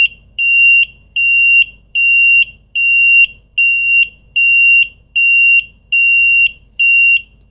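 SEAFLO 95 dB high water bilge alarm sounding. It is a loud, high-pitched beep repeated a little more than once a second, about ten times, and it stops near the end. It has been set off by wet fingers bridging the two sensors of its electric field bilge switch, standing in for rising bilge water.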